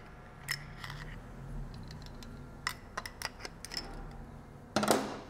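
A screwdriver working inside the steel clutch drum on an automatic transmission's input shaft, making scattered small, sharp metallic clicks, with a louder clatter near the end.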